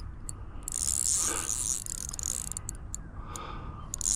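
A fishing reel ticking as the angler works a hooked peacock bass, with two bursts of hissing splash as the fish thrashes at the water's surface: a long one about half a second in and a shorter one near the end.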